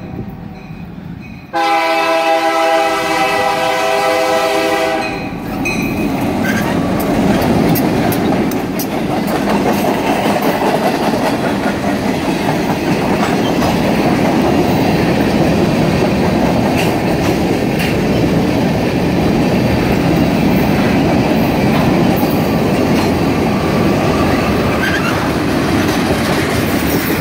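Train horn sounding one long blast about two seconds in, then the train passing: a steady rumble with the clatter of wheels over the rail joints.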